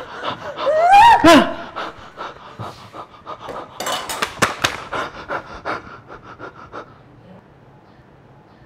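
Heavy, fast panting, with a short squealing cry about a second in; the breaths fade out about seven seconds in.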